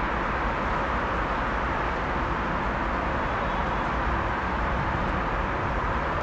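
Steady rumble of a Class 56 diesel locomotive, its Ruston-Paxman V16 engine, running light and drawing closer from a distance.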